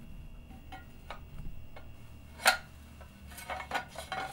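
Roller bearings of a Stepcraft 2 CNC's ZX connector clicking against the aluminium Z linear track as the part is fitted into it. Scattered faint ticks, one sharp click about two and a half seconds in, then a quick run of small clicks near the end.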